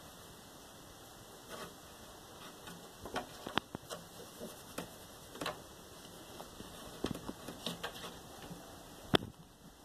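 Scattered light taps and scratchy clicks from a cat's paw reaching under a closed door and batting at the door and carpet, with one sharper knock near the end.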